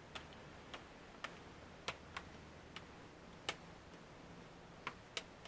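Plastic snap clips on a Dell 3100 2-in-1 Chromebook's display lid clicking loose as a pry tool is worked along its edge: about nine sharp clicks at irregular intervals.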